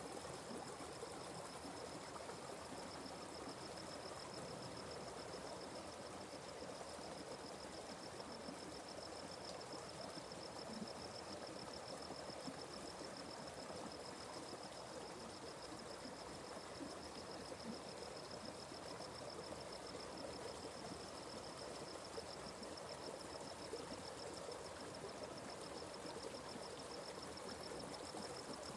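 Atlantic Forest stream flowing steadily, with a continuous high-pitched pulsing insect trill over the water.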